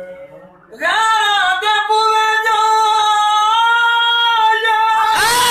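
A man singing a qasida in a high, strained voice: about a second in he launches into a loud held note that stays steady for about four seconds, then breaks into wavering ornaments near the end.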